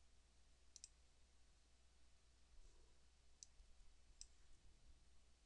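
Faint computer mouse clicks: a quick pair about a second in, then two more single clicks later, over near-silent room hiss and a low steady hum.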